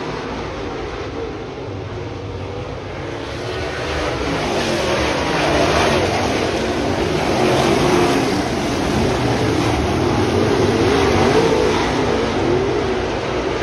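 A pack of dirt late model race cars running at speed around a dirt oval. Their V8 engines rise and fall in pitch with the throttle, and the sound grows louder from about four seconds in as the field comes past.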